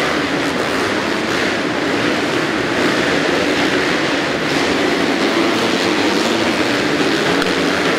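Several motocross bikes racing, their engines revving and blending into a loud, steady drone.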